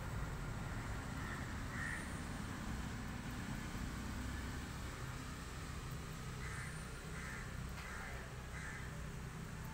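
Crows cawing: two caws a second or two in, then a run of five about half a second apart from about six and a half seconds in, over a steady low background rumble.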